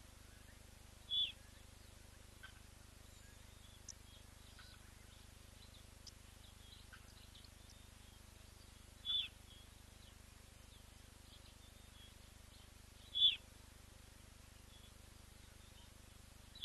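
A bird's short, sharp, high call, given singly four times several seconds apart, over faint chirping of other birds.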